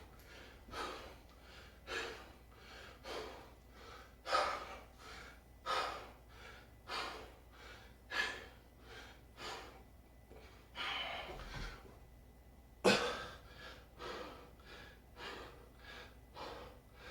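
A man breathing hard and rhythmically through a set of shoulder raises, with a sharp exhale about every second, in time with each rep. A longer, stronger breath comes about two-thirds of the way through.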